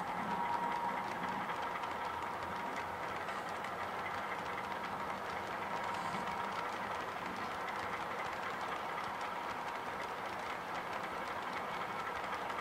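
Model train running on a layout: a steady hum with a faint whine and light, irregular clicking from the wheels on the track.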